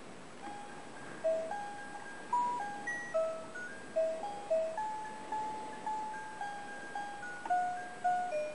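Background music: a simple melody of single clear notes, each struck sharply and then fading, a little more than one note a second.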